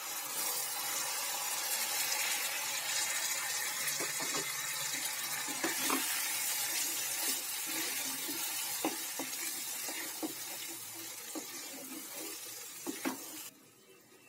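Water poured into hot frying onion-tomato masala in a kadai, hissing and sizzling, while a wooden spatula stirs it with light knocks and scrapes against the pan. The hiss eases off gradually and cuts off shortly before the end.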